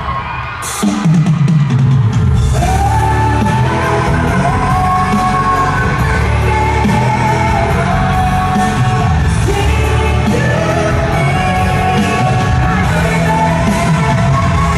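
A live pop band with a drum kit plays while a female lead singer holds long sung notes, with the reverberation of a large arena. The music dips briefly at the start, and a hit less than a second in brings the full band back in.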